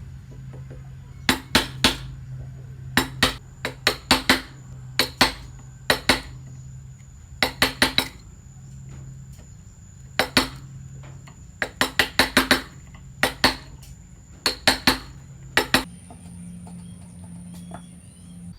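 Hammer blows with a metallic clink, struck in quick runs of two to four and repeated every second or two, as in hand-cutting a timber joint. A steady low hum runs under them, and the blows stop about three seconds before the end.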